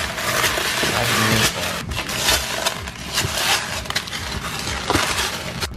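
Crunchy slime being kneaded by hand: vase-filler beads worked into the slime crackle and scrape against the bottom of a plastic tub in a dense run of small clicks.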